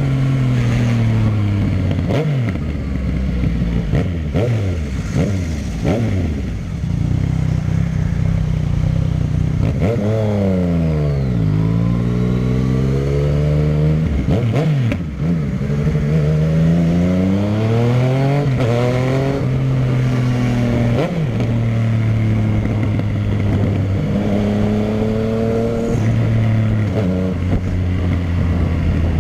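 Yamaha MT-09's inline three-cylinder engine running through a short Dogster aftermarket exhaust with the dB killer baffle fitted, heard while riding. The engine mostly holds steady revs, and the pitch falls and climbs again about ten seconds in and once more later on.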